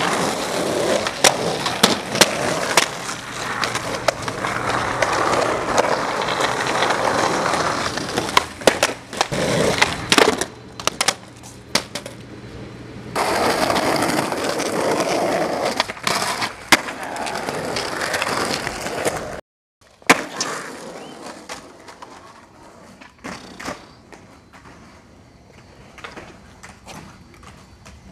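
Skateboard wheels rolling over rough street pavement, broken by sharp clacks and slaps of the board popping and landing. The sound cuts out for a moment about two-thirds through, then the rolling returns quieter.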